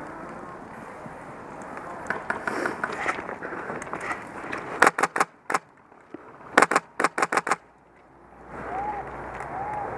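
HK416 airsoft rifle on a PolarStar high-pressure-air engine firing two quick bursts: about three sharp shots, then about six more a second and a half later. Fainter pops come a couple of seconds before them.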